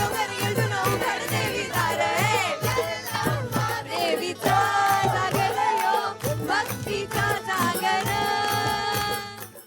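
A song playing: a voice singing a melody over a steady beat, cut off abruptly near the end.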